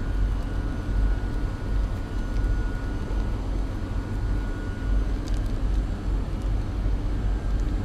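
Steady low rumble of workshop background noise, with a faint steady whine that stops about five seconds in. A few light clicks come near the five-second mark.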